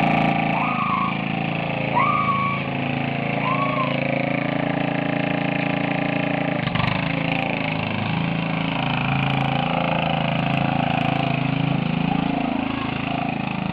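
Riding lawn mower's small engine running steadily as it is driven across a lawn, with a short click about seven seconds in.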